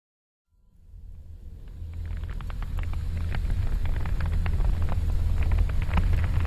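A deep, low rumble fades in from silence about half a second in and swells, with scattered crackling clicks over it.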